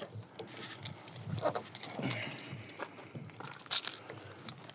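Scattered crunching and clicking as a truck's door is unlatched and swung open, with keys jingling; the sharpest click comes near the end.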